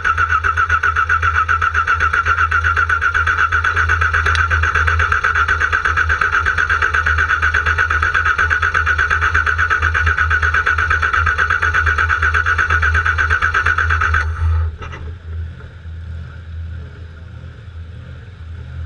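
Car engine cranking on its starter motor without catching, a steady rhythmic whirr that stops abruptly about fourteen seconds in: the engine will not start.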